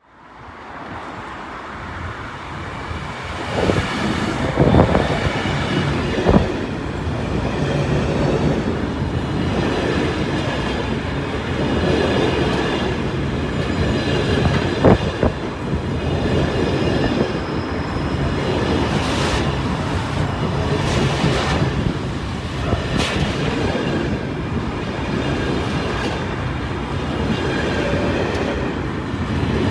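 A freight train's container flat wagons rolling past close by with a steady rumble. Sharp wheel clicks over rail joints come a few times, under a faint high wheel squeal.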